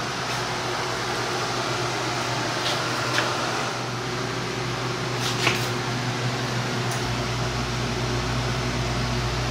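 Steady whir and low hum of ventilation or air-handling machinery, with a deeper hum strengthening about seven seconds in and a few faint clicks.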